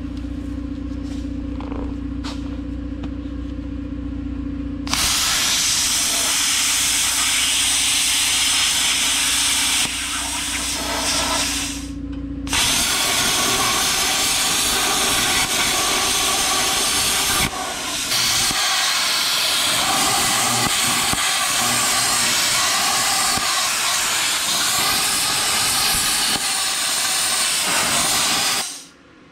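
Plasma cutter cutting a steel exhaust tip: a loud, steady hiss of the arc and air jet that starts about five seconds in, drops off briefly twice, and stops just before the end. Before the cut starts, a steady low hum of the air compressor that feeds the cutter.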